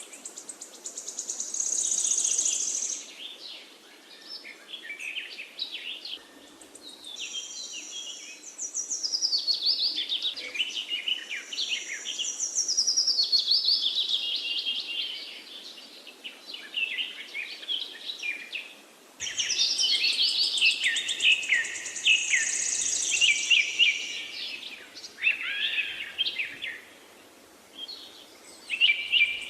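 Several birds chirping and singing together, many overlapping high calls and quick falling trills.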